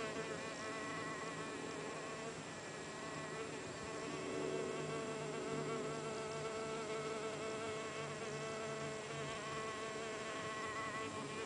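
Mason bees (blue orchard bees) buzzing as they fly around and into their nesting tubes, a steady hum that wavers in pitch.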